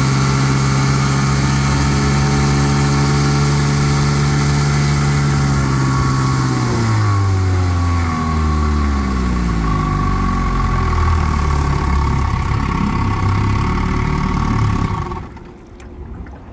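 1960 Johnson QD-21 10 hp two-stroke twin outboard running steadily at speed, then throttled back, its pitch falling over a couple of seconds to a lower, less even run. Near the end the motor stops and the sound drops away suddenly.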